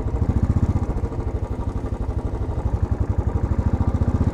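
Single-cylinder engine of a 2010 Royal Enfield Classic motorcycle running at low revs in slow traffic, with a steady, rapid, even pulse.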